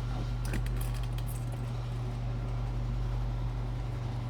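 Steady low background hum, with a few faint light clicks about half a second and a second in.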